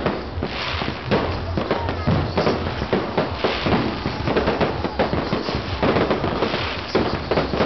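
Fireworks and firecrackers going off in a street: a dense, continuous run of sharp bangs and crackles, several per second, with no break.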